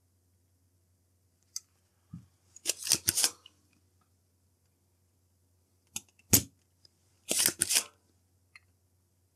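Spring-loaded solder sucker (desoldering pump) being cocked and fired on circuit-board joints: sharp plastic clicks and snaps in two clusters, about three seconds in and again from about six to eight seconds in, with quiet between.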